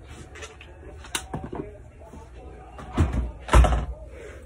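Household knocks: a sharp click about a second in, then two heavy thumps half a second apart about three seconds in.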